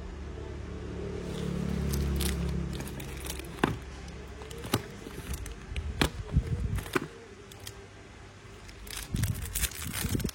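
Zippo Replica 1932 lighter's lid being flicked open and snapped shut, giving a series of sharp metallic clicks; its lid sound has been tuned to ring like a bell. A low rumble runs under the first few seconds.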